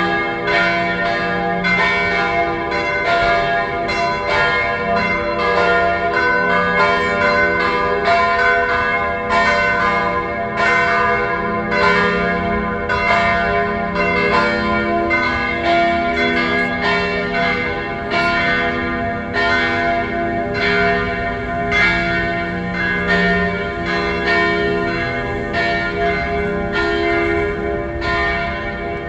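Church bells of the Church of All Nations at Gethsemane pealing, several bells struck in quick succession, roughly two strokes a second, their tones ringing on and overlapping.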